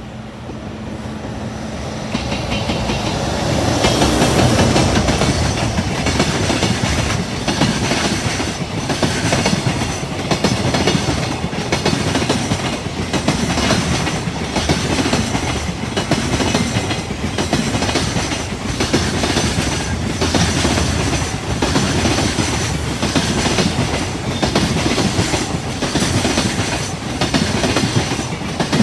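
A long train passing close by. Its sound builds over the first few seconds, then its wheels clack over rail joints about once a second as the cars go by.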